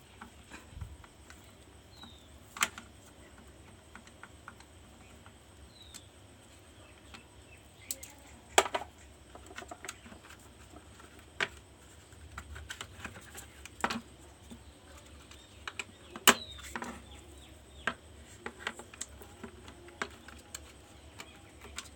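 Irregular clicks and light knocks of hard plastic and metal parts being handled while an opened induction cooktop is worked on, about a dozen at uneven intervals, the loudest about a third and three quarters of the way in.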